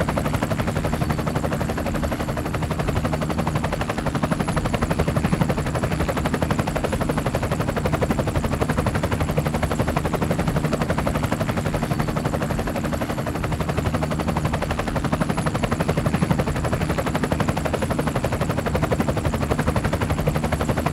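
Small quadcopter drone's propellers buzzing steadily, a rapid even pulsing with a constant pitch.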